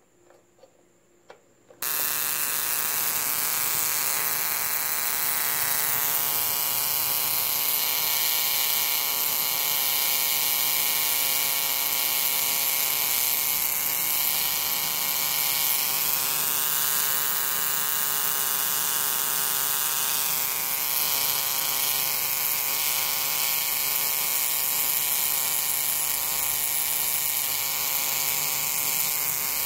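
Small spark gap Tesla coil, run from a high-voltage module, switched on after a few faint clicks and then buzzing loudly and steadily as it fires, throwing small arcs from its top terminal to a metal rod.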